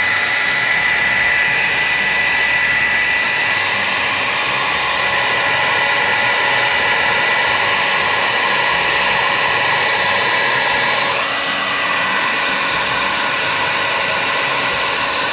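Hand-held hair dryer running steadily, held close to the plastic steering-wheel paddle housing to heat it: a steady rush of air with a high whine. About eleven seconds in, the sound drops slightly and its tone shifts a little.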